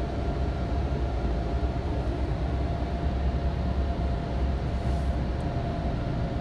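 Automatic gantry car wash machine running, heard from inside the car's cabin: a steady low rumble with a constant mechanical hum.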